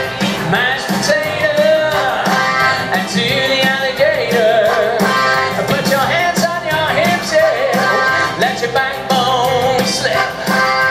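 Live music: a singer's voice over a band with a steady beat, played loud through a venue's sound system.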